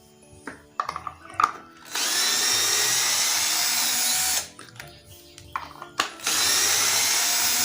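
GAOCHENG GC-CL12V 12 V cordless drill/driver running in two bursts of about two and a half seconds each as it works screws in wood, with clicks and handling noises before and between the runs.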